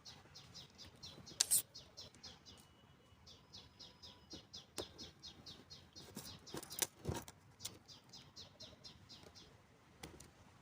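A bird chirping steadily and quickly, about four short high notes a second, with a few sharp clicks. The loudest clicks come about seven seconds in.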